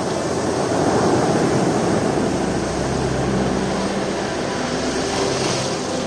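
Sea surf washing up a sandy beach and foaming around rocks, a steady rush of water that swells about a second in and then slowly eases.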